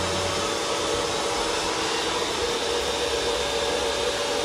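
Steady whirring drone of a motor or blower running, with a faint steady hum tone in it.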